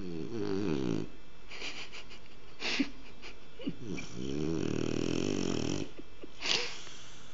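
French bulldog snoring heavily in its sleep: two long rattling snores, one at the start and one from about four to six seconds in, with short sharp breaths between them.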